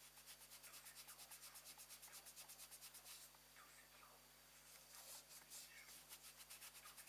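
Faint, fast rubbing strokes by hand, about eight a second, in two runs with a pause of a second or so in the middle.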